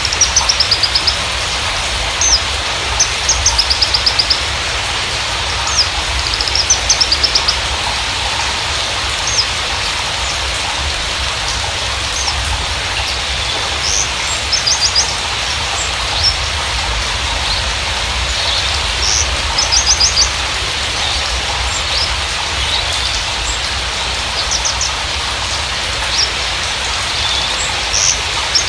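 Javan bushlark (Mirafra javanica parva) singing in short bursts of fast, high trilled notes every few seconds, over a steady hiss.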